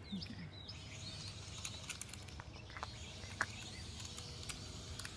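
Small toy quadcopter drone in flight: a faint motor whine that wavers in pitch, with a few light clicks.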